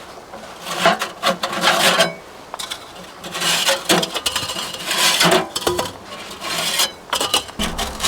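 Irregular scraping, rasping strokes, five or so in a row, each about half a second to a second long.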